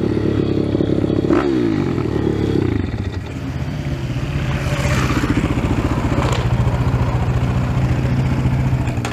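Pit bike engine running at low revs under the rider, its pitch falling about a second and a half in and then holding steady at a lower, idle-like speed.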